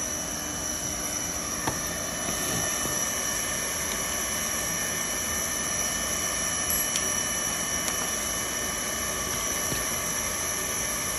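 Hot-air vinyl welding gun's blower running steadily, a constant rushing hiss with a high whine over it, with a couple of faint clicks.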